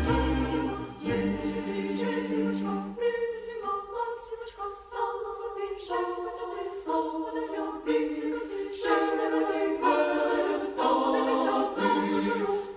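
Background music: a choir singing slow, sustained chords without instruments, the harmony shifting about once a second.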